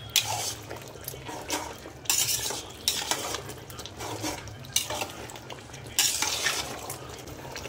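A metal spoon stirring and scraping around a metal pot of mutton cooking in masala, in irregular strokes, over a low steady hum.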